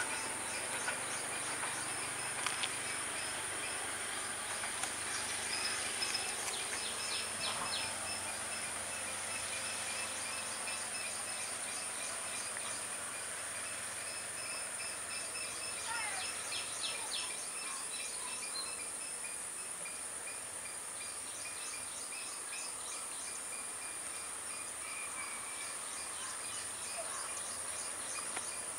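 Steady high-pitched insect drone with birds chirping, over the low rumble of a train moving away and fading over the first ten seconds or so.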